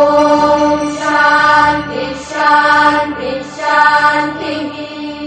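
A woman's voice chanting a Sanskrit Vedic hymn to Lakshmi in about three long held phrases, over a steady drone.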